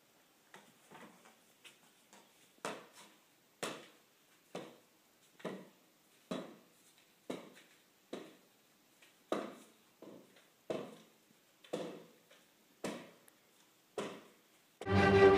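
A steady series of single knocks or taps, about one a second, each dying away quickly; music starts loudly near the end.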